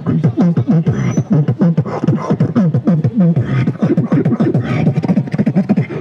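A man beatboxing into a handheld microphone: a fast, unbroken stream of vocal drum strikes with deep bass tones that slide downward in pitch.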